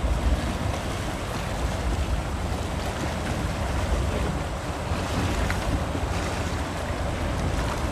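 Wind buffeting the microphone, a fluctuating low rumble, over a steady wash of waves.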